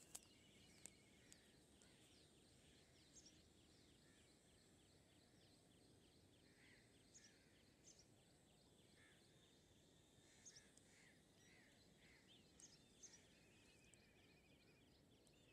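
Near silence, with faint high bird chirps and short trills scattered throughout.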